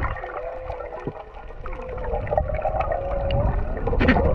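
Humpback whale song heard underwater: long, steady held tones, one ending about a second in and another running from about two seconds in until just before the end. Beneath them are a low rumble of water movement and a scattering of faint clicks.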